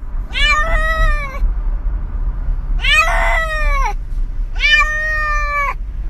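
Domestic cat giving three long, loud meows about a second each, the owner taking them for an angry complaint at not being allowed on the counter.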